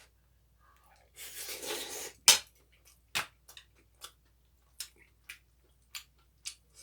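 Eating utensils on dishes: a brief scraping about a second in, then one loud clink, followed by a string of lighter, irregular clicks as the spoon or chopsticks tap the bowl.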